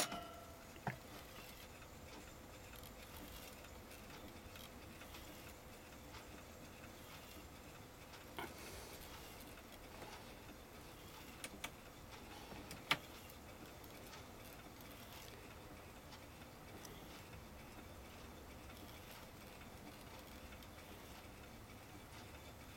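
Play key pressed on a Realistic TR-3000 reel-to-reel tape deck (a rebadged Teac X-3): a sharp clunk as the transport engages. The deck then runs quietly, with a faint steady hum and a few light clicks.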